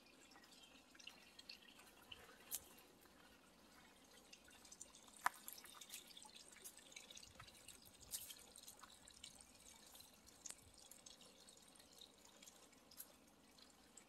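Faint forest ambience, close to silence: a soft background hiss with scattered light ticks and clicks, one sharper click about five seconds in.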